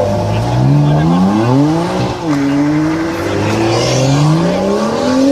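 A high-performance car engine revving hard as the car accelerates. The pitch climbs, drops sharply about two seconds in at an upshift, then pulls up again.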